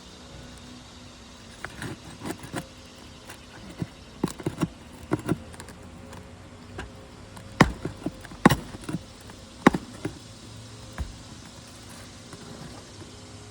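Irregular clicks and knocks of small hard objects being handled, with three sharper knocks a little past the middle.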